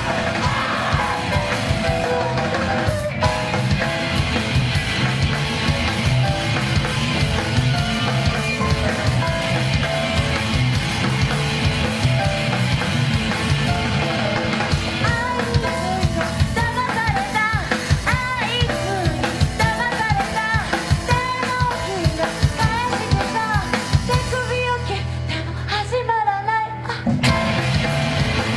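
Loud live punk-jazz rock band playing, with driving drums under dense instruments. From about halfway a woman's voice sings and yells over it. Near the end the drums drop away for a couple of seconds over a held low drone before the full band comes back in.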